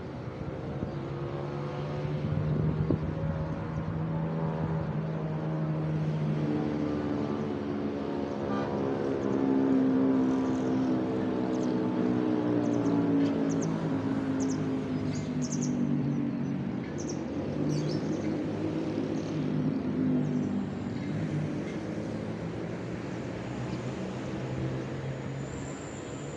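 Vehicle engine running on the road, its pitch drifting slowly and loudest around the middle, with short bird chirps over it in the middle stretch.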